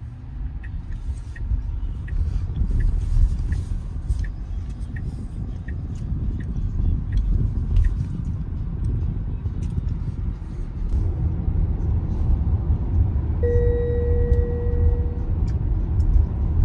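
Tyre and road rumble inside a moving Tesla's cabin, with a light regular ticking about every 0.7 s in the first half. About 13 seconds in, a steady electronic beep sounds for about two seconds: the car's over-speed-limit warning.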